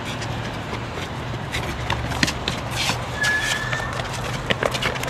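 Hard-soled shoes scuffing and stamping on a concrete sidewalk as several people grapple with one man, over a steady low traffic rumble. A short high squeak comes about three seconds in.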